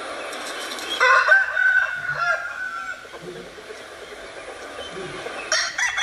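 A rooster crowing: one long call of about two seconds, beginning about a second in, with chickens clucking around it.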